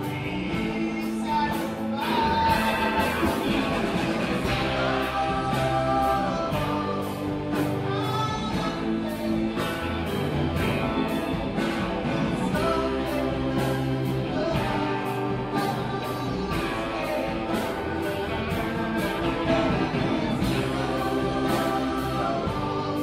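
Live rock song played on guitar with a steady beat, with a man singing over it.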